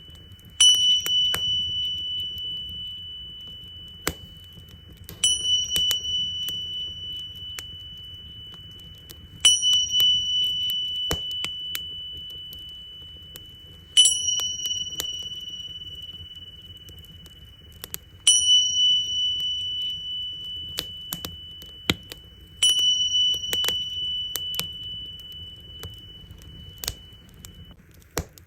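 Tingsha cymbals struck together six times, about every four and a half seconds, each strike a bright ringing tone that fades slowly until the next. Under them a wood fire crackles with scattered pops.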